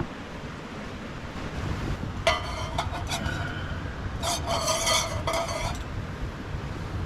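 Metal cookware clanking and scraping with a ringing tone, in two stretches about two seconds and four seconds in, over a steady low rumble.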